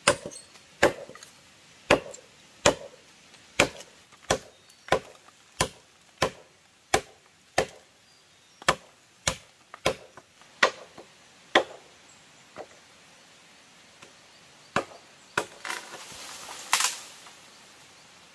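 A hand tool chopping into wood in a steady rhythm, about three strokes every two seconds. It pauses, gives a few scattered strokes, then a short rustle and one more crack near the end.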